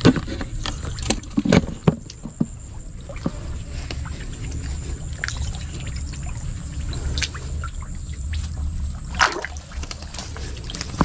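Hands sloshing and splashing in shallow muddy water while groping for fish, with scattered small splashes and a steady low rumble underneath.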